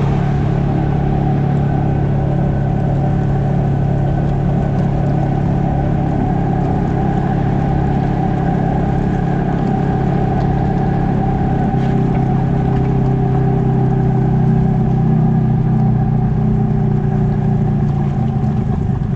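Off-road vehicle's engine running steadily at low trail speed, with a rumble underneath from the rough dirt track.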